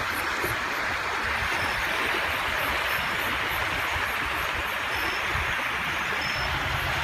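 Steady rushing noise of wind and small waves on the open bay shore, with uneven low rumbles of wind buffeting the microphone.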